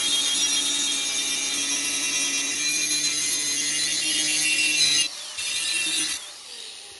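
Handheld angle grinder with a stone disc grinding the one-sided cutting edge of a blunt steel forage-wagon knife, a steady loud grinding with a whining motor. The grind breaks off about five seconds in, bites again briefly, then the grinder spins down with a falling whine near the end.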